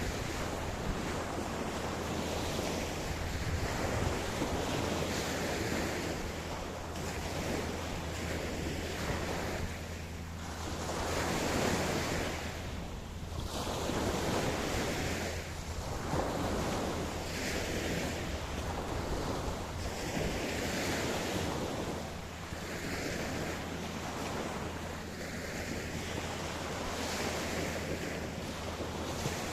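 Ocean surf washing onto a beach, a continuous rush that swells and fades every few seconds, over a steady low rumble.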